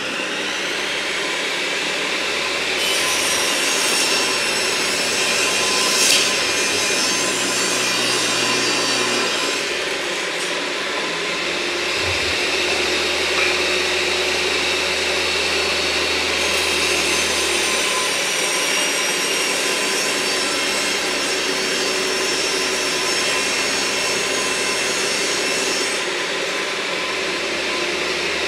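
Table saw running steadily while ripping wooden boards to width, the blade cutting into the wood in two long passes with a harsher, higher sound.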